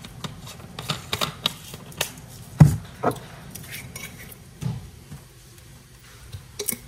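Kitchen clatter: a scattered series of sharp clicks and knocks from utensils and containers being handled, with one heavier thump about two and a half seconds in.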